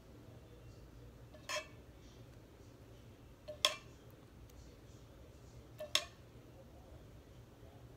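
A spatula clinking against a frying pan while sauce is scooped out of it: three light clinks about two seconds apart, the second and third each a quick double.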